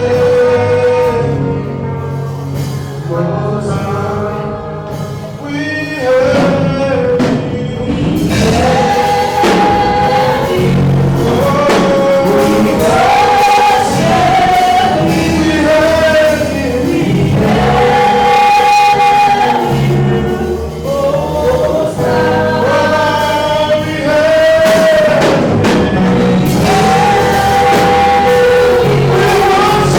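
Gospel music: a choir singing long, held notes over instrumental backing.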